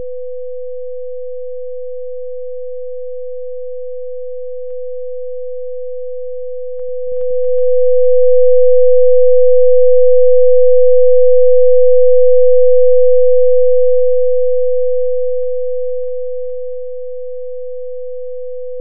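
Steady 500 Hz pure sine tone from a computer sound simulation, heard at the listener's position. It swells much louder from about seven seconds in, holds, then fades back down by about seventeen seconds as the listener is brought close to the speaker and moved away again.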